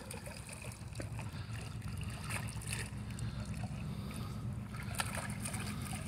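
Water sloshing and lapping in a shallow plastic kiddie pool as a dog wades about in it, with a few short sharper splashes, over a low steady rumble.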